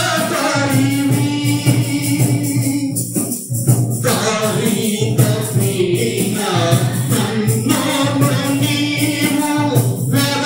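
Telugu Christian devotional song: voices singing over instrumental backing with a steady beat.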